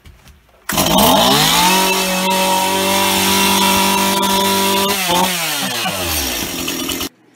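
Chainsaw engine starting up about a second in and revving hard, its pitch climbing quickly and then held at high revs, before the revs drop away as the throttle is released; the sound cuts off suddenly near the end.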